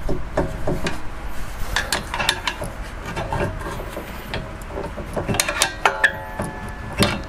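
Irregular metal clinks, scrapes and knocks as a screwdriver pries and wiggles a rear brake caliper and its pads off the disc rotor, the pads catching on the worn lip at the rotor's edge. Some knocks ring briefly.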